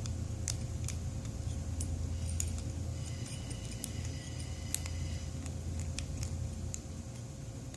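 A lock pick probing the pins inside a Dongchang padlock's keyway: scattered small metallic clicks and a light scrape, over a steady low hum.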